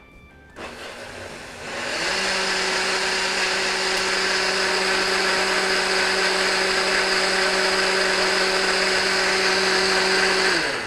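Countertop blender puréeing avocado, spinach and water into a creamy green smoothie. It starts softly about half a second in and steps up to full speed about two seconds in. It runs steadily with a low hum, then winds down with a falling pitch near the end.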